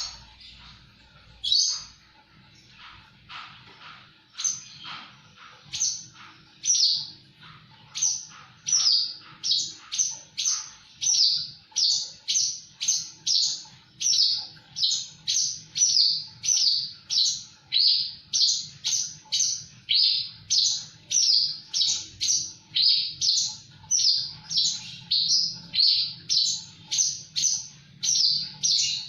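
Horsfield's bush lark (branjangan) singing persistently. At first the short, high, slurred notes come sparsely, then from about four seconds in they run on steadily at about two notes a second.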